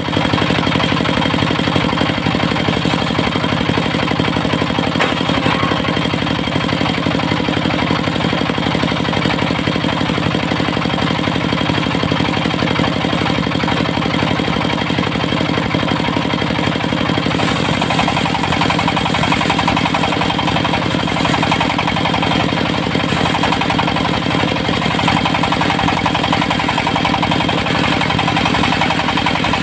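Diesel engine of a mobile circular sawmill running steadily, with a change in its note about seventeen seconds in.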